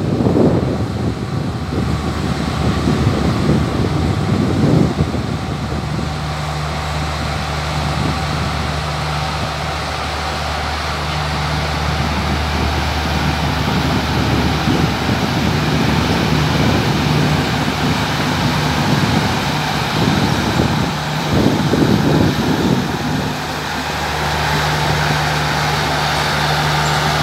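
Diesel locomotive's engine running with a steady low drone as it rolls slowly past, with bouts of rougher low rumble in the first few seconds and again about three-quarters of the way through.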